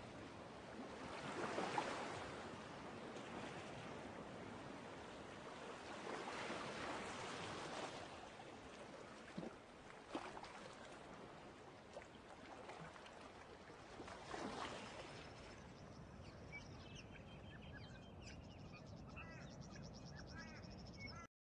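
Faint outdoor garden ambience: a rushing noise that swells and fades a few times, with a couple of sharp clicks in the middle. Birds chirp over the last few seconds before the sound cuts off.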